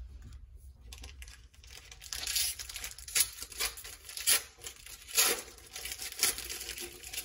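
Paper wrapper of a trading card pack being torn open and crinkled: a string of short rips and rustles starting about two seconds in.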